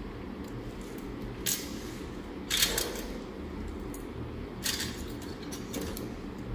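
Steel surgical instruments being handled, giving four short clicks or scrapes, the loudest about two and a half seconds in. A low steady hum runs underneath.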